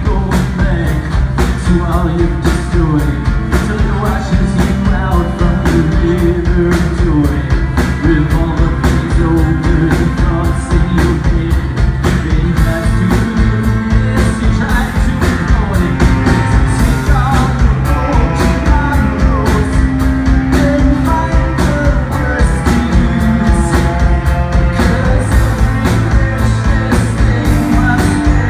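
Live rock band playing a song: electric and acoustic guitars, electric bass and a drum kit keeping a steady beat.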